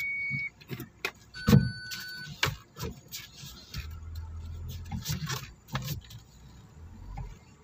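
Scattered knocks and clicks around a parked car. A short high electronic beep sounds at the very start, and other high tones sound briefly about a second and a half in.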